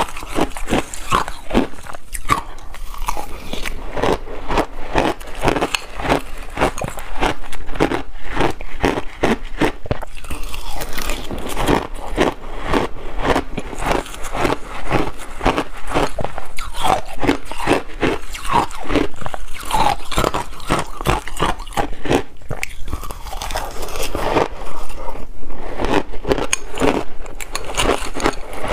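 Close-miked crunching and chewing of mouthfuls of shaved ice, a dense run of rapid crunches, with a metal spoon scraping the glass bowl now and then.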